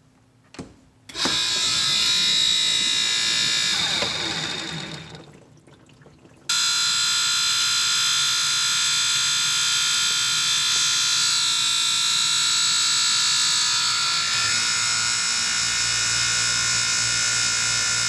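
GE dishwasher's wash motor and pump running with a loud, high-pitched mechanical whine: a failing motor. It starts about a second in, dies away around five seconds, then starts again abruptly around six and a half seconds and keeps running.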